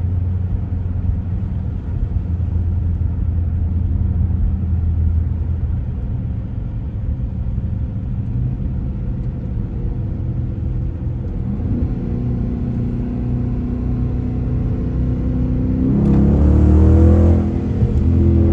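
Dodge car engine running at a steady low drone while cruising, then revving up with a rising pitch from about two-thirds of the way in. Near the end it pulls hardest and is loudest, breaks off briefly, and climbs again.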